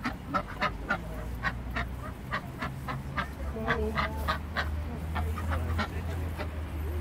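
Mallard ducks quacking in a run of short quacks, about three a second, over a low steady rumble.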